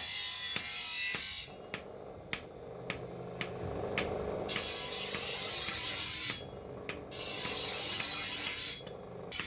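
Rasping, scraping work on a grass cutter machine blade, in long stretches of hissy rubbing broken by short pauses with light clicks.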